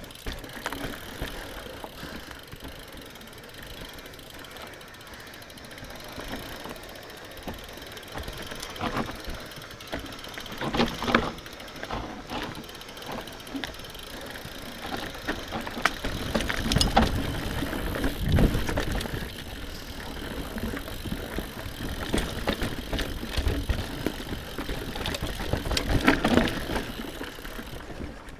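Mountain bike descending rough singletrack: tyres rolling over dirt, rocks and roots, with the chain and frame rattling and sharp knocks from hits. It gets heavier and rougher about halfway through and again near the end.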